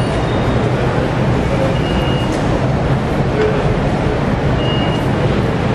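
Steady, loud background noise with a low rumble and no clear rhythm or change.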